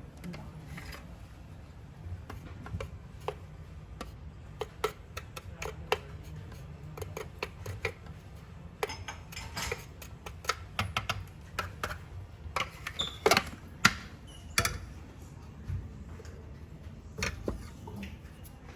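Coffee-making gear being handled at a coffee machine: irregular clicks and knocks, a few louder ones about two-thirds of the way through, over a low steady hum.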